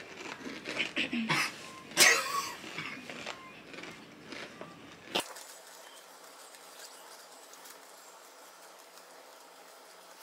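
Crunching and chewing on a very hot tortilla chip, with one loud, short burst of breath or voice about two seconds in. After about five seconds the sound drops abruptly to faint steady hiss.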